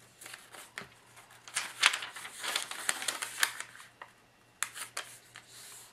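A sheet of origami paper being folded and its crease pressed flat by hand: a run of crisp paper rustles and clicks, the loudest just under two seconds in.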